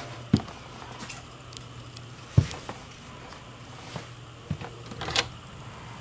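An RV's interior door being handled and opened: a few sharp knocks and clicks from its latch and frame, the loudest about two and a half seconds in, over a low steady hum.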